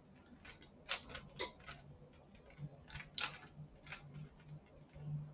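A Rubik's Cube being twisted by hand: a dozen or so irregular plastic clicks as its layers turn, with a faint low hum underneath.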